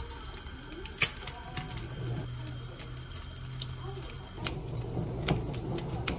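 A spoon clinking and knocking against a plastic container and a bowl as kimchi is scooped and moved, a few sharp clicks in all, over a low steady hum.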